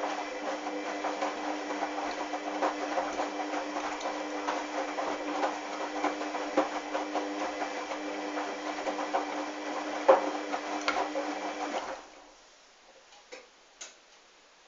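Hoover washing machine's motor turning the drum during a wash: a steady mechanical hum with irregular clicks, which cuts off suddenly about twelve seconds in, leaving a few faint ticks as the drum pauses.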